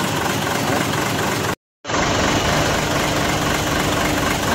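Mitsubishi Fuso 6M70 inline-six diesel engine idling steadily, newly started after its injectors were refitted to cure hard starting. The sound cuts out completely for a moment about a second and a half in.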